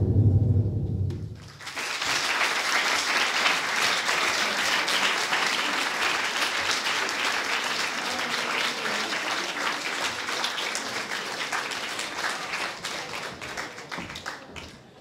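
Theatre audience applauding, starting about a second and a half in after a low rumble dies away, and fading out near the end.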